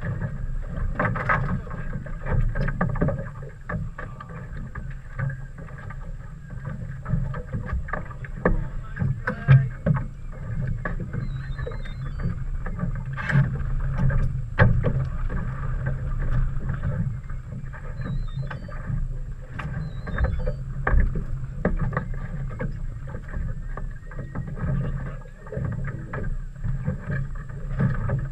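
Steady low hum of a boat's motor running under wind noise, with scattered short knocks and splashes.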